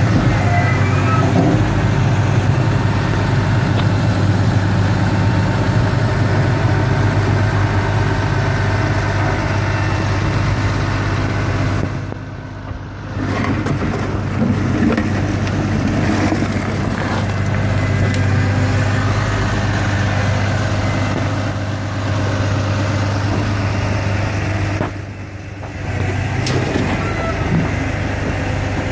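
Grab lorry's diesel engine running steadily at a constant speed while its hydraulic grab crane works, with a few irregular clunks of soil and rubble being handled. The level drops briefly twice.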